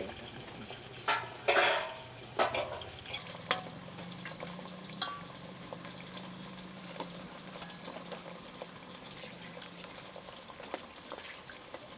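Potato slices frying in hot oil with a steady sizzle, while a metal utensil stirs and scrapes in the pan, the loudest scrape about a second and a half in.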